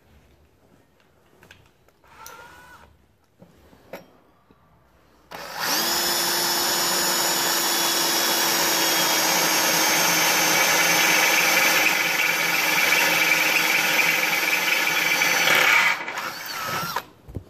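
Cordless drill running steadily at constant speed with its bit in a rubber-matted floor cover. It starts about five seconds in after a few faint clicks, runs for about ten seconds, then falters and stops near the end.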